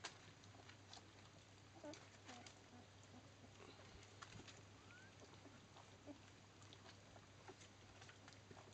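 Faint, scattered wet clicks and smacks of young Labrador puppies lapping soft food from a steel bowl at their first feed, with one short rising squeak about halfway through.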